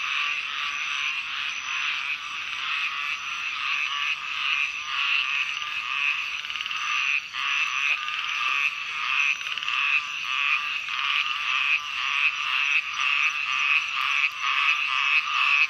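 Chorus of many small frogs calling from a pond, a dense, unbroken run of rapid croaks that swells and dips in quick pulses.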